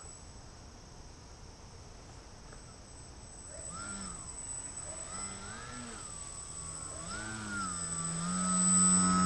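Brushless electric motor and propeller of a small 3D foam RC plane (SunnySky 2204 1800kv), throttled back at first. From about four seconds in it is blipped several times in short rising-and-falling whines, then held at a steady, louder higher-throttle drone near the end.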